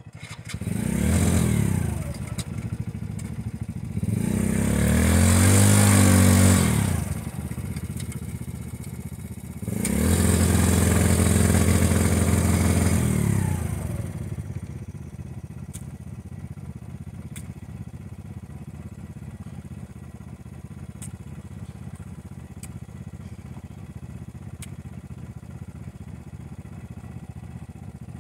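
Yamaha Grizzly 90 youth ATV's small single-cylinder four-stroke engine revving three times while it sits stuck in mud, the revs coming about half a second, four seconds and ten seconds in, the last held for about four seconds. It then drops back to a steady idle for the rest.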